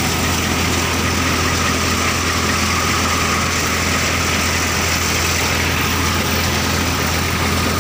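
A Massey Ferguson 1035 tractor's three-cylinder diesel engine running steadily under load, driving a belt-powered thresher that is threshing mustard. The engine's low hum and the thresher's drum and belts make one even, unbroken din.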